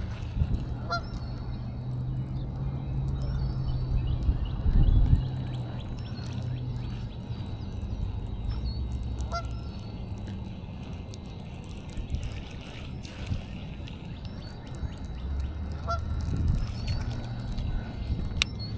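A few short bird honks, about three spread out, over a steady low rumble.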